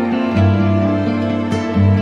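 Background music: soft plucked-string instrumental with notes changing about every half second.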